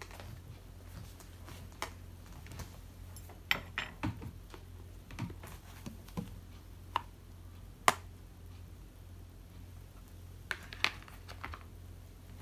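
Light kitchen handling at a wooden table: scattered clicks and taps as a metal fork and a plastic tub are set down by the wet rice paper, the sharpest click nearly eight seconds in, over a low steady hum.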